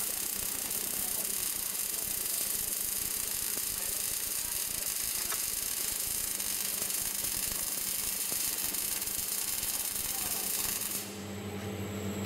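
Welding arc of an automatic pipe welding machine burning along a pipe seam: a steady hiss that cuts off abruptly near the end as the arc stops, leaving a low steady machine hum.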